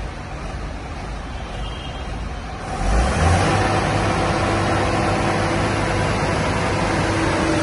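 Hydraulic excavator's diesel engine running, then about three seconds in it picks up to a louder, higher speed and holds steady.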